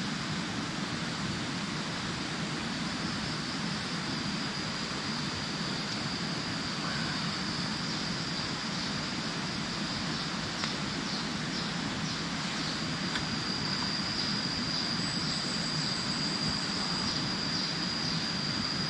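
Steady tropical forest ambience: a high, continuous insect drone holding one pitch over a low, even rumble.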